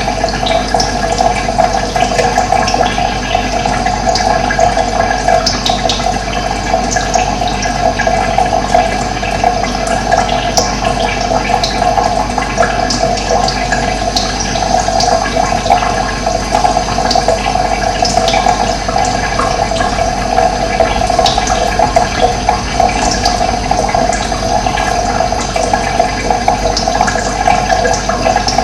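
Steady rush of running water, loud and unbroken, with short high chirps of small birds scattered through it.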